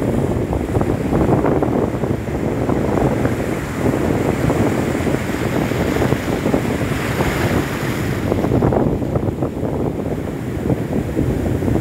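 Sea surf breaking and washing through shallow water, with strong wind buffeting the microphone in an uneven, gusty rumble.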